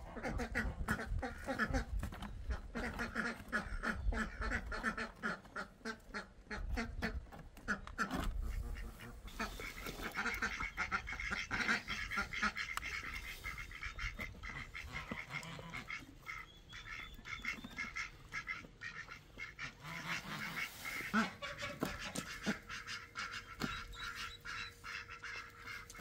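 A flock of domestic geese calling continuously, a dense run of quick repeated calls.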